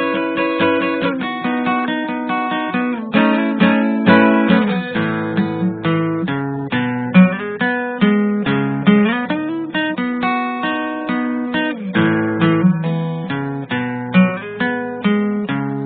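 Acoustic guitar music: plucked and strummed notes following one another in quick succession.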